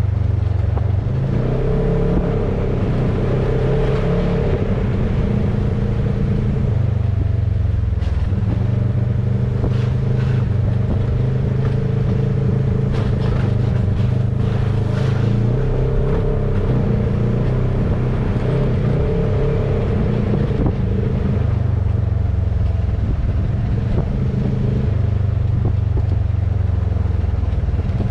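Engine of a Polaris RZR side-by-side running steadily as it drives along a trail, heard from on board, its pitch shifting a little a few times with the throttle.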